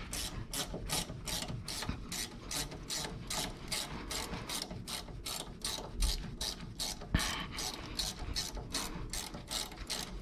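Hand ratchet wrench clicking steadily, about four or five clicks a second, as a fastener is turned out, with a single knock about seven seconds in.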